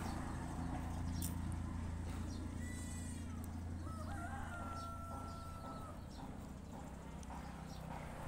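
A rooster crows once, a long call starting about three seconds in and lasting a couple of seconds, over a steady low rumble.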